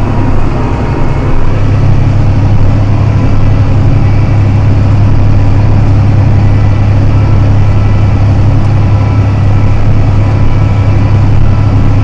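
John Deere 7280R tractor's six-cylinder diesel engine running steadily while plowing snow, a constant low drone with no change in speed.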